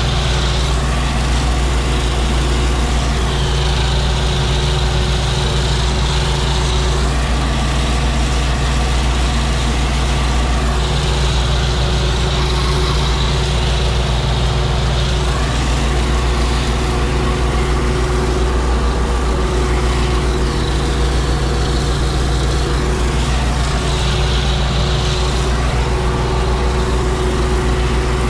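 MTZ-82 Belarus tractor's four-cylinder diesel engine running steadily, heard from inside the cab, with a high whine that comes and goes every few seconds.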